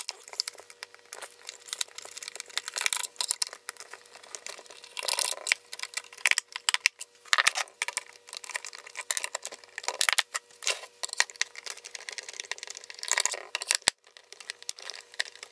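Screwdriver backing screws out of a plastic inverter case, with the case being handled on a wooden bench: irregular clicks, scrapes and rattles of metal on plastic.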